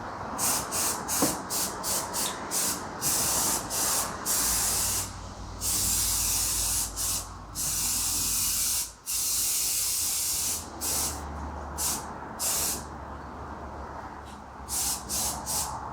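Aerosol can of 2X spray primer spraying in a string of short bursts, with a few longer passes of a second or so.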